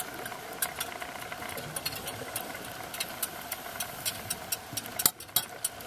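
Underwater sound on a coral reef: a steady droning hum with many irregular sharp clicks and crackles over it.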